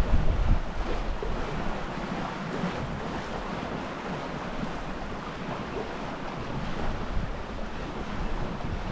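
Wind blowing over the microphone and water washing along the hull of a small sailboat under way in choppy water. Heavier wind rumble in the first half-second, then a steady rush.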